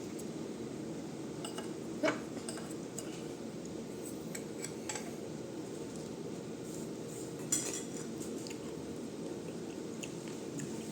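Scattered light clinks and taps of dishes and cutlery, with two louder knocks, one about two seconds in and one past halfway, over a steady low background hum.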